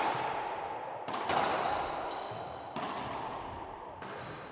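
Racquetball rally: the hard rubber ball cracking off racquets and court walls, four sharp hits (two close together about a second in, then near three seconds and about four seconds in), each ringing on with a long echo in the enclosed court.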